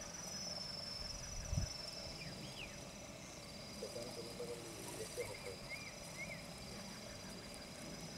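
Insects trilling in repeated short, high-pitched bursts in outdoor grassland ambience, with a low thump about one and a half seconds in and a few short chirps later on.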